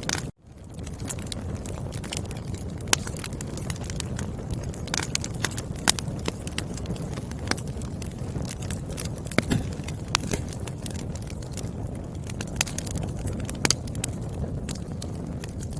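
Wood fire crackling: a steady low rumble of burning logs with frequent, irregular sharp pops and snaps. The sound cuts out for a split second just after the start and fades back in.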